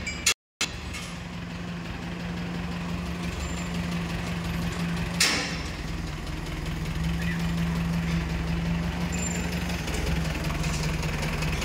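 Diesel engine idling steadily, with a single sharp knock about five seconds in.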